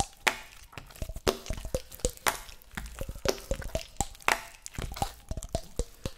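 Wet crunching, cracking and squelching sound effects: a dense run of sharp clicks and pops at uneven intervals, some with short wet blips, like something being chewed.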